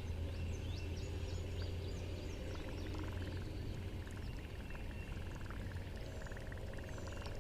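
Outdoor lakeside ambience: scattered short, high chirping wildlife calls over a low steady hum.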